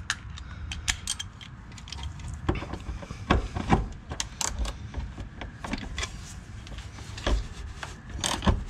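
Socket ratchet working a 12 mm shift-linkage bolt loose, with irregular metal clicks and clinks. A denser, louder run of clicks comes near the end.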